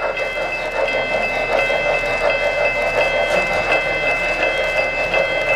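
O-gauge model passenger train rolling past on three-rail Fastrack, its wheels rattling over the track. A steady high whine runs under a light, regular clicking about three times a second.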